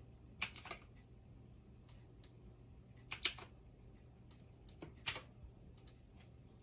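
Clicking at a computer keyboard and mouse: scattered sharp clicks, grouped in small clusters about half a second, three seconds and five seconds in, with fainter ticks between, over a faint steady low hum.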